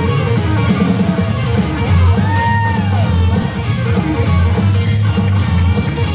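Rock music with guitar, one note bending up and back down about two seconds in.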